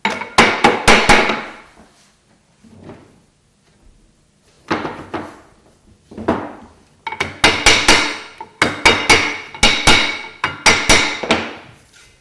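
A wooden block knocking organ-pipe metal down around a steel mandrel to roll it into a tube: a series of sharp knocks that ring, a quick group at the start, a few single blows, then a dense run of knocks in the second half.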